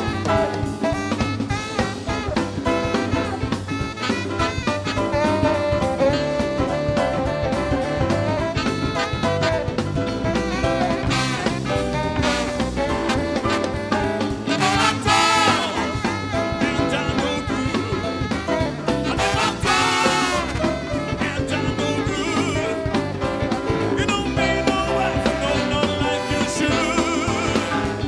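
Live band playing an instrumental passage, saxophone and brass horns over a drum kit.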